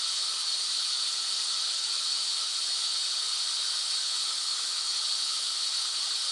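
Steady white noise: an even, unbroken hiss, mostly high-pitched, with no change in level.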